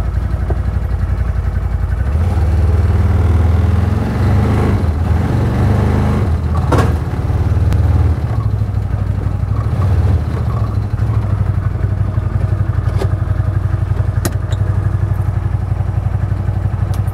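CFMoto ZForce 950 Sport side-by-side's V-twin engine running as the machine is driven up onto a utility trailer. The engine gets louder for several seconds under the climb, settles to a steady run with a few sharp knocks, and is shut off at the very end.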